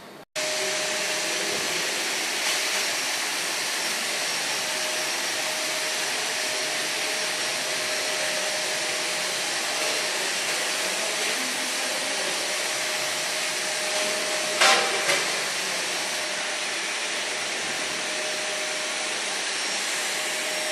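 Steady, even machine noise like a running blower, with a faint constant whine. It starts abruptly and has one brief sharp click about three quarters of the way through.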